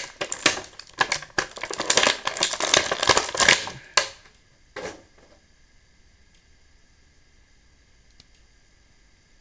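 Clear plastic packaging tray crackling and crinkling as an action figure is pulled out of it, dense for about four seconds, with one more short crackle about a second later, then it goes quiet.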